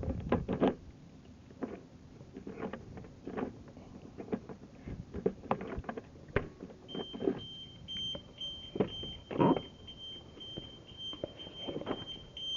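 Car alarm going off with a high-pitched, pulsing beep that starts about halfway through, set off because the car's main battery is dead. Before it come scattered clicks and knocks.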